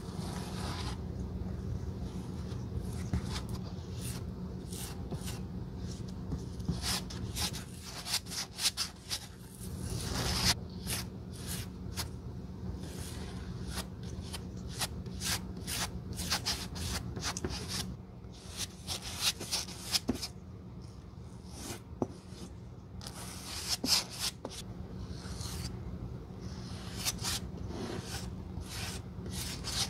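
A flat metal spatula spreads glue over a Birkenstock cork footbed and a new black sole, making many short, irregular scraping and rubbing strokes. A steady low hum runs underneath.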